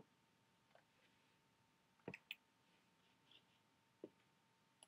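Near silence with a handful of faint, scattered clicks from working a computer, two of them close together about two seconds in.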